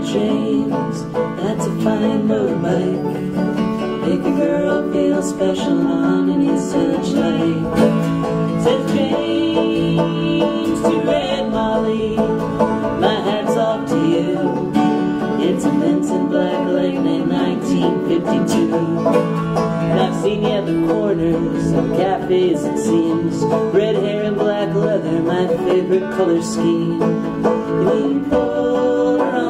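Live folk music: a steadily strummed acoustic guitar and a picked open-back banjo playing an up-tempo song, with singing at the microphones.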